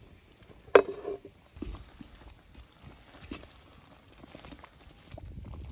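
Fried chicken pieces pushed off a wooden board with a metal slotted spoon into a pot of creamy sauce: one sharp knock about a second in, then soft splashes, scrapes and small clicks.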